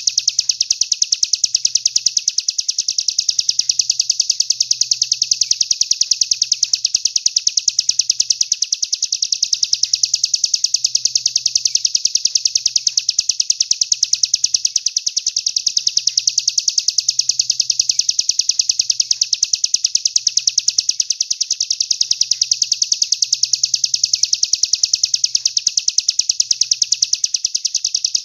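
Songbird masteran recording: a high, fast, even trill that runs unbroken and never changes, the kind of song phrase played to train competition songbirds.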